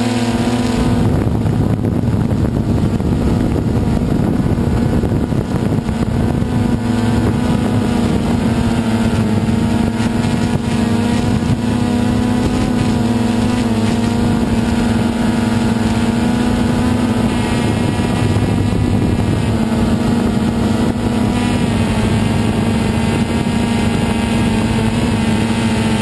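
DJI Phantom 2 quadcopter's motors and propellers running with a loud, steady hum, heard up close from the camera mounted on the drone. Its pitch wavers slightly as the drone manoeuvres.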